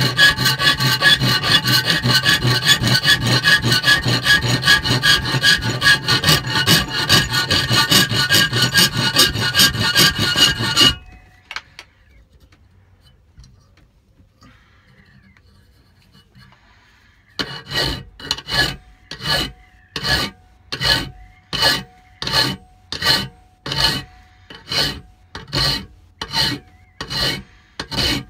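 Hand file scraping across a workpiece: quick continuous strokes for about eleven seconds, a pause of several seconds, then slow, evenly spaced strokes a little over one a second, each with a faint ring.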